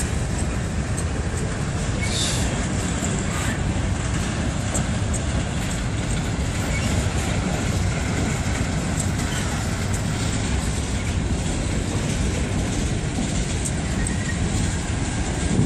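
Freight train of covered hopper cars rolling past, with a steady noise of steel wheels on the rails.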